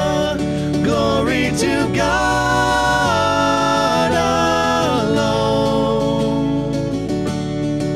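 A church praise band playing a worship song, with voices holding long sung notes over the instruments; the music thins out near the end.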